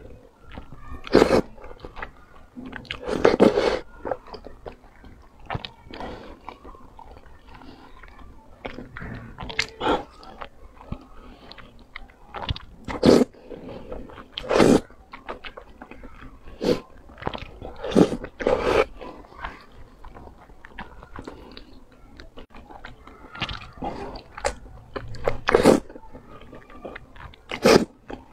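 Close-miked eating sounds: slurps and bites of saucy squid and wide noodles at irregular intervals, with wet chewing between them.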